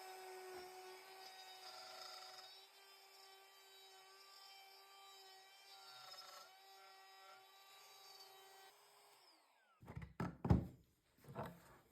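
Wood router motor running at a steady high pitch, then switched off about nine seconds in and winding down. A few loud, short rustling noises follow near the end.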